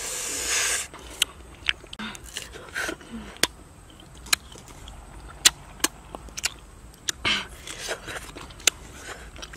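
A person eating green tamarind dipped in chili paste: a short scrape of the pod through the paste at the start, then crisp bites and mouth clicks while chewing, with a sharp breath about seven seconds in.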